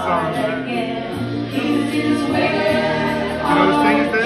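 A woman singing into a microphone through a PA, with music behind her voice.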